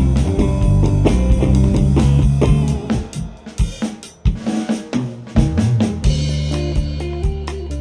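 Live band playing an instrumental passage on drum kit, electric guitar and bass guitar, with the drums to the fore. About three seconds in the sustained bass and guitar notes drop away, leaving mostly drum hits for a few seconds, and they come back in about six seconds in.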